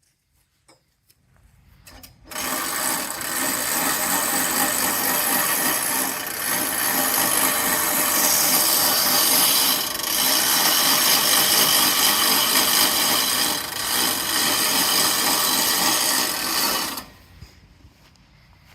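Woodland Mills portable bandsaw mill powered up, its band blade sawing a white pine log: a loud, steady saw-and-engine noise that starts suddenly about two seconds in and runs for about fifteen seconds before dropping back to a low idle near the end.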